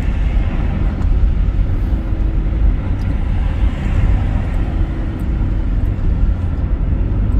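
A car driving on the highway, heard from inside the cabin: steady road and engine noise with a deep, even rumble.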